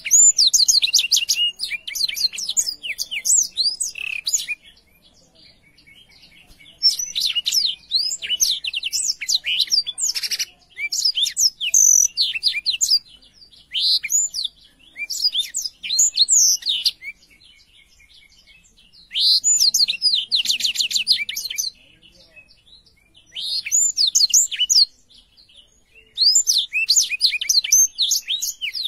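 Blackthroat (black-throated canary) singing loud, high, twittering song in repeated bouts of a few seconds each, full of rapid trills and quick up-and-down notes, with short pauses between bouts.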